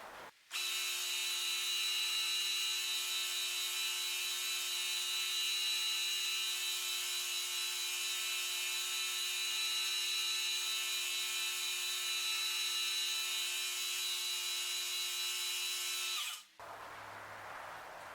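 Belt grinder running a 220-grit belt against a Damascus steel blade, grinding out the coarser 60-grit scratches on the bevels. It makes a steady whine with grinding hiss, starts suddenly just after the beginning and cuts off suddenly near the end.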